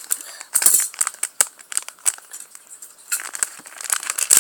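Plastic toy packaging being cut open with scissors and handled: sharp clicks and snips, a quieter stretch in the middle, then crinkling from about three seconds in.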